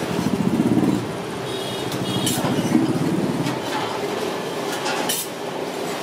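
A motor engine running with a rapid pulsing rumble, loudest in the first second and fading out about three and a half seconds in. Over it come a few sharp clinks of a metal spatula on the steel dosa griddle.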